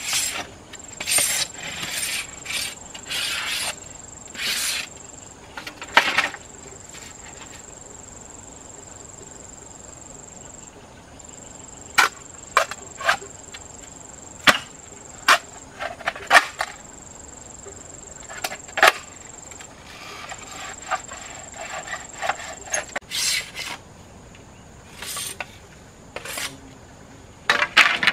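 Machete and wooden strikes on bamboo poles: irregular sharp chops and knocks, some in quick runs. Under them, a steady high insect buzz.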